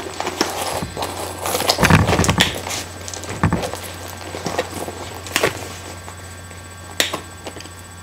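Handbags being handled close to the microphone: rustling with scattered clicks and knocks, two duller thumps about two and three and a half seconds in, and a sharp click near the end, as one purse is put down and another, with a metal chain strap, is picked up.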